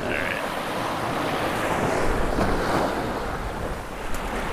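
Small surf waves washing up and draining back on a sandy beach, with wind buffeting the microphone.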